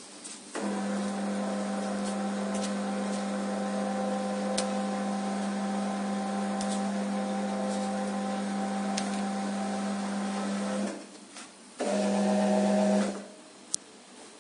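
Conveyor belt of a QMAX NF-1 needle detector running with a steady motor hum. It stops about eleven seconds in, runs again for about a second and stops, followed by a single sharp click.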